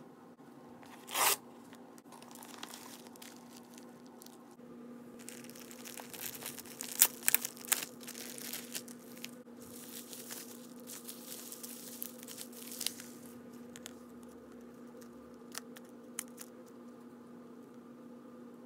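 Kraft-paper padded mailer torn open with one short loud rip about a second in. Then come several seconds of crinkling and crackling as plastic bubble wrap is handled and unwrapped from a small package, with a few sharp cracks. It thins out to occasional light clicks of handling near the end, over a faint steady low hum.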